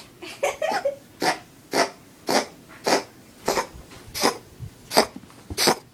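Domestic cat coughing in a rapid run of about ten harsh, breathy coughs, one every half-second or so. The owner takes it for a cat trying to bring up a hairball.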